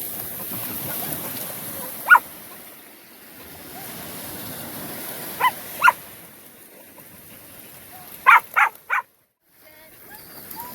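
Australian shepherd barking: one bark about two seconds in, two more a few seconds later, then three quick barks in a row near the end.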